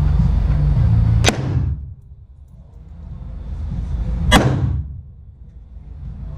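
Two handgun shots about three seconds apart, each sharp crack followed by a reverberant tail from the indoor range. A steady low background rumble drops away after each shot and slowly returns.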